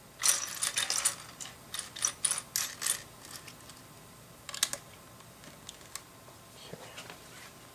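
Loose plastic LEGO pieces clicking and clattering against each other and the table as a hand rummages through a pile of parts. There is a quick run of clicks over the first few seconds, another short clatter in the middle, then a few scattered ticks.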